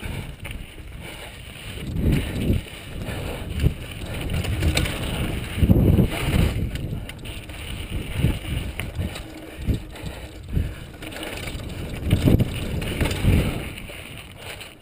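2003 Intense Tracer full-suspension mountain bike rolling downhill over dirt and rock, its tyres rumbling and the bike rattling, with irregular knocks as it drops over rocks, the heaviest about six seconds in. Wind rushes over the helmet-mounted microphone.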